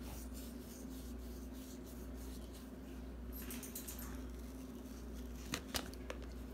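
Quiet fingertip handling of a clear plastic container lid while pillow batting is tucked into a vent hole, over a low steady hum, with two small plastic clicks near the end.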